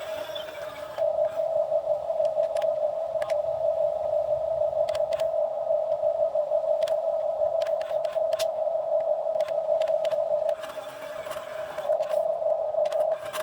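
Excavator at work: a steady whine that gets louder about a second in and dips briefly near the end, with scattered clicks and knocks as it scrapes the ground.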